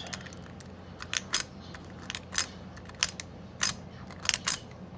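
Irregular metallic clicks and light scrapes of a diamond lock pick raking the pin stack of a Bunker Hill circular padlock, trying for a false set. About seven sharp clicks come at uneven intervals over a low steady hum.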